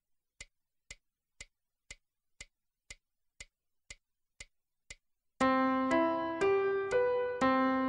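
Metronome clicks from a Yamaha arranger keyboard, about two a second, counting in a recording. About five and a half seconds in, a piano-like keyboard voice begins playing a pattern of notes, about one every half second, as it is recorded into a style track.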